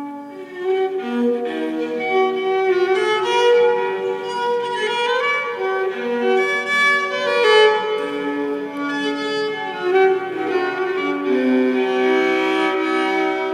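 Music: a violin playing a melody of held, bowed notes that change pitch every second or so.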